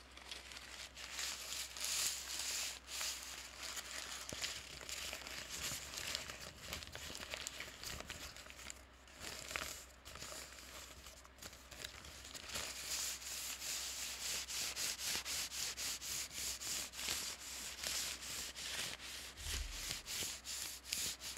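A paper bag being crinkled and crumpled by hand: a continuous dense crackling that turns into quicker, more regular crackles about halfway through.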